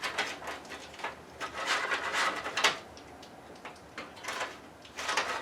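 Toolless plastic hard-drive tray being pushed and worked into a PC case's drive bay: a run of clicks, rattles and scraping, then a few single clicks, as the tray fails to latch in place.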